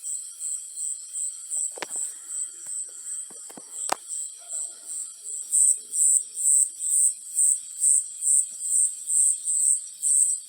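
A cricket chirping in a steady high-pitched rhythm, about two to three chirps a second, growing louder a little past halfway. Two sharp clicks sound about two and four seconds in.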